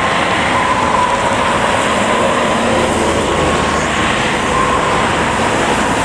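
Road traffic passing on a wet road: a steady, dense noise of tyres and engines, with a faint steady whine running through it.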